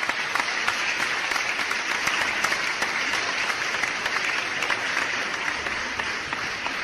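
Applause: many people clapping in a dense, steady patter that tails off near the end.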